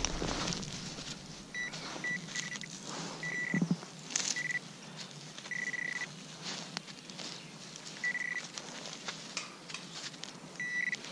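Metal detector (Garrett AT Pro International) giving short high beeps on one steady pitch, about eight at irregular intervals, two of them longer, signalling a metal target under the coil. Soft rustling and a few light knocks between the beeps.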